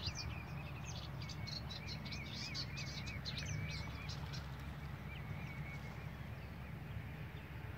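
Reed-marsh ambience: many quick high chirps from small birds, thickest in the first half, over a recurring wavering trill and a steady low rumble.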